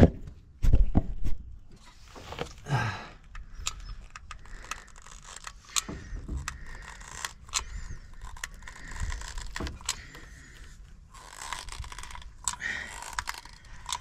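Caulking gun squeezing out a bead of mastic sealant: irregular sharp clicks from the trigger and plunger, with short scraping sounds between them.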